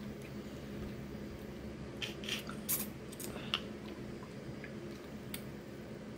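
Crab leg shells crackling and snapping in a few short bursts as they are picked apart by hand, with chewing, over a steady low hum.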